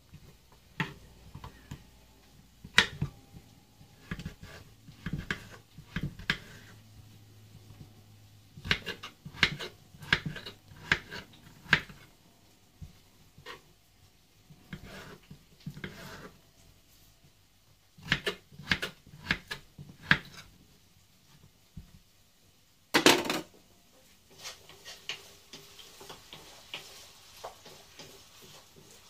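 Kitchen knife chopping peeled potatoes into cubes on a cutting board: irregular runs of sharp taps, with one louder clatter near the end.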